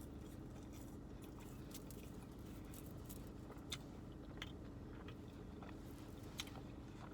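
A person chewing food, with scattered soft crunches and mouth clicks, over a steady low hum.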